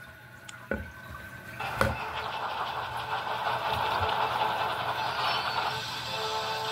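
Animated steam locomotive's running sound, a steady hiss of steam and motion that sets in about a second and a half in, played through a screen's speaker and picked up in the room. Two sharp clicks come just before it.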